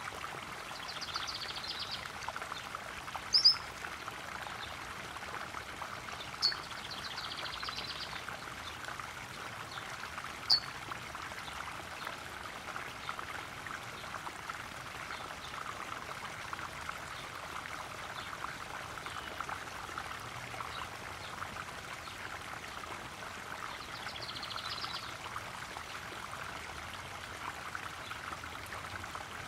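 Small garden pond waterfall splashing and trickling steadily into a koi pond. A few short, sharp bird chirps stand out over the water in the first ten seconds or so, with fainter high trills now and then.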